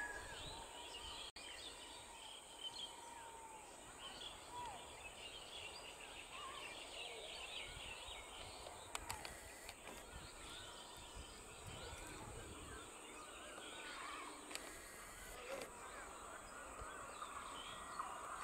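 Faint rural ambience full of small birds chirping and calling in many short notes, over a steady high-pitched tone.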